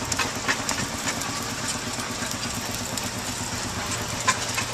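Steam showman's traction engine running steadily, a fast even beat with a few sharp clicks, the loudest near the end.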